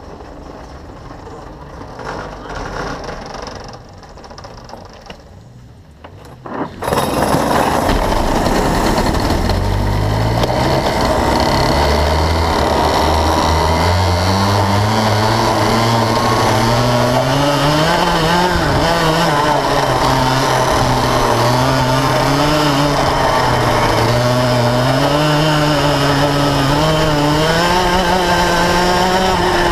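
Yamaha KT100 single-cylinder two-stroke kart engine comes in loud about seven seconds in, then runs hard, its pitch climbing as the kart accelerates and dropping back into the corners, over and over.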